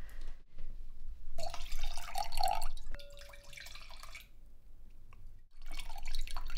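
Red wine poured from a bottle into a wine glass, splashing for about a second and a half, then a light clink of glass that rings on briefly. A second, shorter splash of liquid comes near the end.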